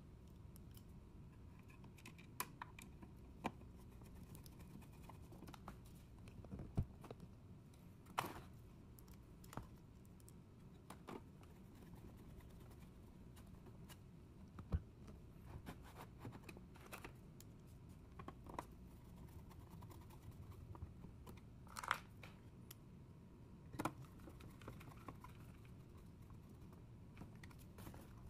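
Faint, scattered clicks and taps of a hand screwdriver and small screws against a car head unit's sheet-metal chassis as the screws are driven in, with a few louder clicks along the way.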